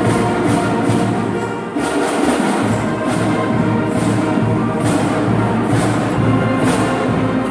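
Middle school band playing live: brass and woodwinds sounding sustained chords over percussion, with a brief dip in volume about two seconds in.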